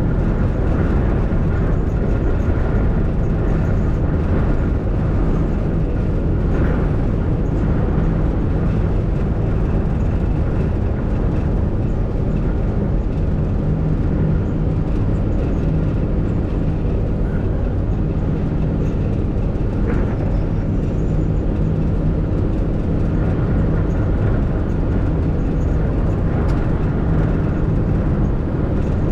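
MAN truck's diesel engine running steadily at cruise, heard from inside the cab, with tyre noise from the wet road.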